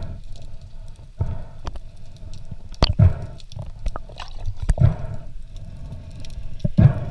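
Muffled underwater sound heard through a waterproof camera housing: water swishing around the camera, with four dull knocks a little under two seconds apart.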